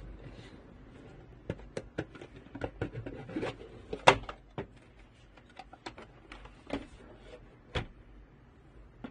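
A cardboard smartphone box being handled: the lid slid off and the phone lifted out of its tray, giving scattered taps, clicks and light scrapes, the loudest knock about four seconds in.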